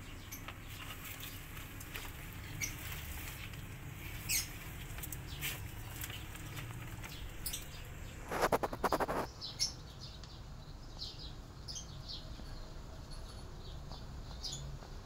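Small birds chirping now and then, in short high notes, over a low steady background hum. About eight seconds in comes a louder rapid rattle lasting about a second.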